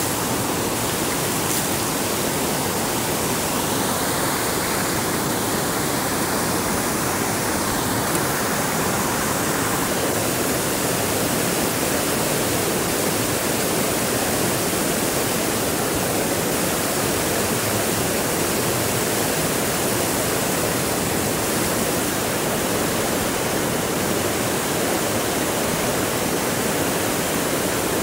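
Steady rushing noise of water, even and unbroken.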